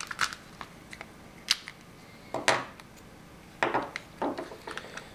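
Scattered clicks and short knocks of a paintball marker's plastic grip frame and small parts being handled and set down on a table during disassembly, with a few louder knocks through the middle of the stretch.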